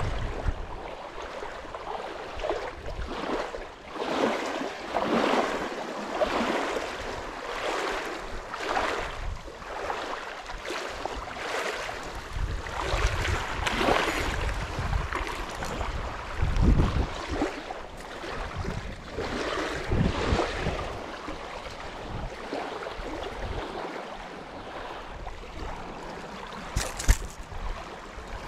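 Small waves lapping at the shore, with wind buffeting the microphone in repeated swells. About halfway through, a hooked black bass splashes at the surface as it is reeled in. A single sharp click comes near the end.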